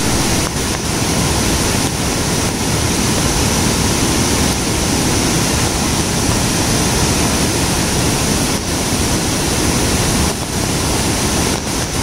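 Steady, loud rush of the Vazhachal waterfall's rapids, river water pouring and churning over broad rock ledges.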